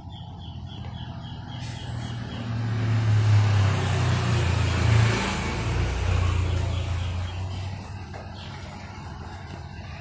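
A motor vehicle passing on the road: a low engine hum and tyre rush that build up, are loudest about halfway through, then fade away.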